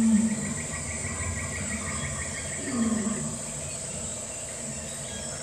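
Insects chirping steadily in a high, even tone, with a fast pulsed trill through the first half. A short low-pitched call sounds at the start and again a little under three seconds in.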